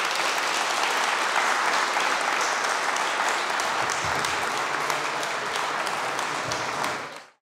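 Audience applauding steadily, then fading out sharply about seven seconds in.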